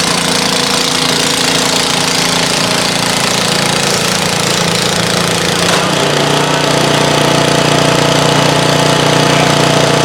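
Snowblower engine running steadily as it clears heavy, wet snow; its note drops to a lower pitch and gets a little louder about six seconds in.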